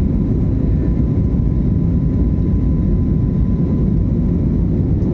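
Steady rumble of an airliner's jet engines and rushing air heard inside the passenger cabin, with a faint steady whine above it.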